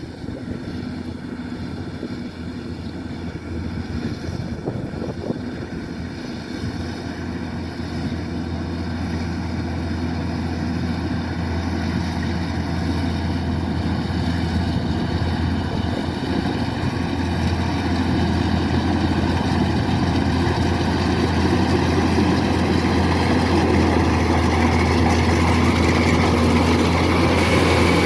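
Kubota DC-105X rice combine harvester running at work, its diesel engine and threshing machinery giving a steady drone that grows steadily louder.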